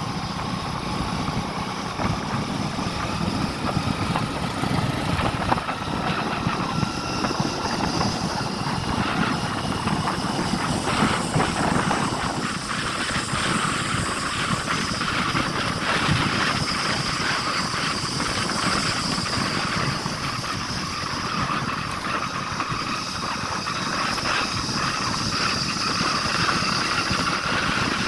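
Motorcycle engine running steadily at cruising speed, heard from the rider's seat, with continuous wind and road noise over it.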